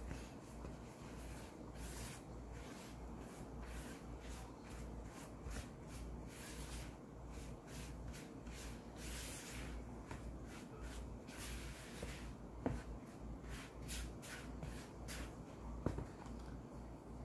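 Spatula stirring and scraping a flour mixture in a mixing bowl: repeated soft scraping strokes, with a couple of sharper knocks against the bowl in the second half.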